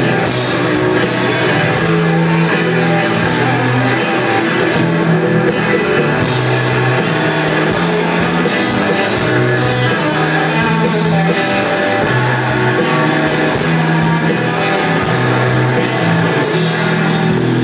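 Live rock-and-roll band playing an instrumental passage: electric guitars over a drum kit, with a low bass line stepping to a new note about every second.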